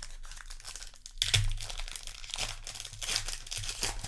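Foil Magic: The Gathering booster pack wrapper crinkling and tearing in the hands, with the loudest rip about a second in.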